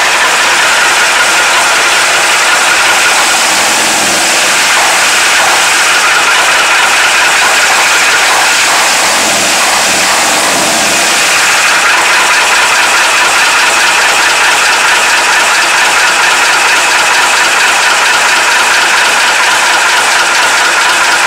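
Praga S5T truck's air-cooled diesel engine running steadily at idle, with its cooling blower, heard close at the open engine bay while it warms up after a cold start.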